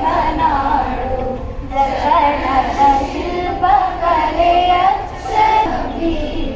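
A large group of women singing a Kannada song together in unison.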